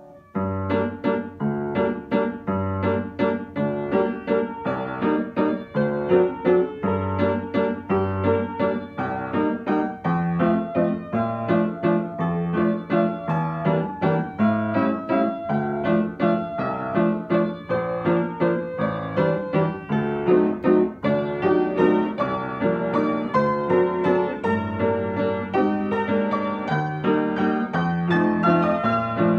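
Upright piano played solo, a flowing piece with a rocking bass line under a melody; after a brief pause right at the start the playing runs on continuously.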